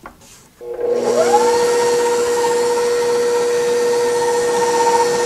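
Electric stand mixer with a flat beater switched on about half a second in: the motor spins up over about a second with a rising whine, then runs at a steady speed, creaming butter, sugar and egg into a batter.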